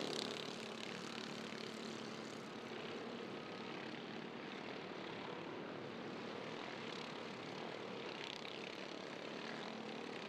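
Several off-road karts' small 265cc Subaru engines running together in a steady drone as the pack races by, with the engine tone fading a little after the first few seconds.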